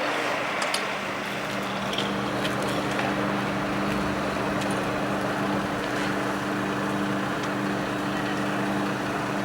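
An engine running steadily with an even hum, with a few faint clicks and clinks early on.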